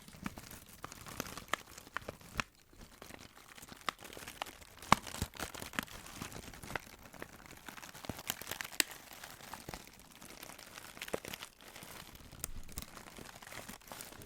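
Packaging being handled and unwrapped: crinkling and crackling with many scattered sharp clicks and bits of tearing.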